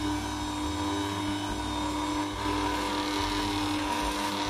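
Bosch stand mixer motor running at a steady whir, its beater mixing flour into a soft butter and salted-egg-powder cookie dough.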